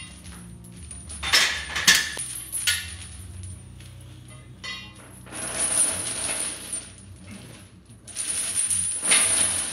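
Heavy steel chains hung from a loaded barbell clinking and rattling as the links pile onto the floor and lift off again during squat reps, with a few sharp metal clanks about a second and a half in and two longer rattles in the second half.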